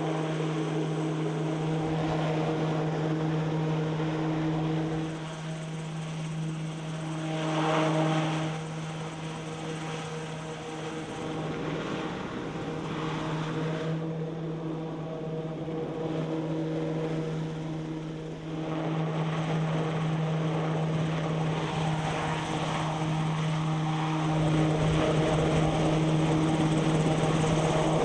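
Piasecki X-49A compound helicopter flying, its main rotor and ducted tail propeller running with a steady droning hum over rushing rotor noise. The sound swells a third of the way in and again near the end.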